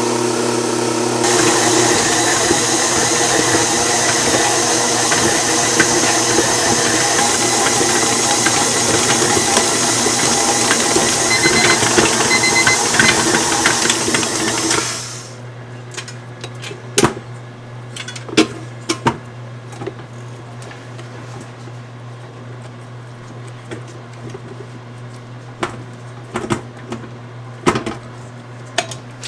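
KitchenAid stand mixers running, their motors whirring steadily while mixing bagel dough; they cut off suddenly about halfway through. After that come scattered clicks and knocks of the metal mixing bowl and dough hook being handled, over a low steady hum.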